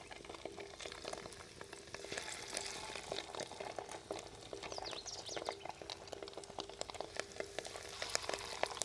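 Lumps of fish-roe pakora batter dropped into hot mustard oil in an aluminium kadhai, the oil crackling and sizzling steadily around them as they fry.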